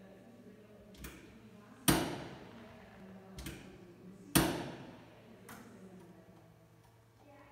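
Controls of a 1962 Chevrolet Corvette being worked while its lights are switched: a few light clicks and two loud sharp knocks about two and a half seconds apart, each ringing out in an echoing room.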